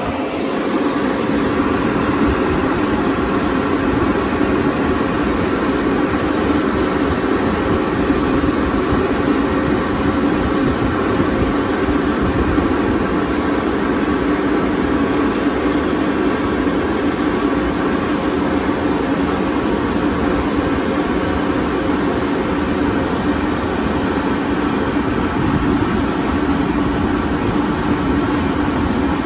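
Car wash dryer blowers running, a loud steady rush of air over a constant motor hum.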